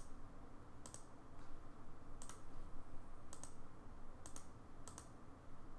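Computer mouse clicking: about five single clicks, roughly one a second, over a faint steady background hum.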